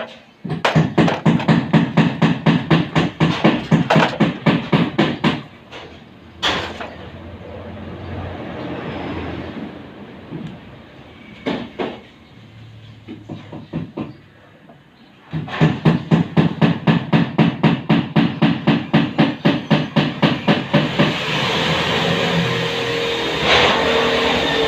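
Rapid, regular strokes of hand tool work, about six a second, in two runs of several seconds each, with a steadier rough noise building near the end.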